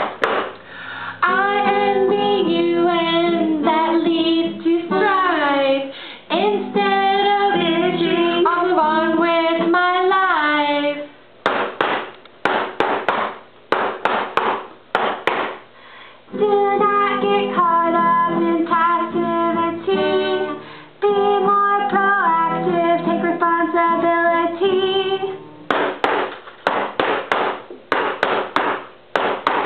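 A small group of women singing a song together to acoustic guitar. Between the sung verses, twice, a pair of sticks is drummed in a rapid run of sharp strikes on a hard surface.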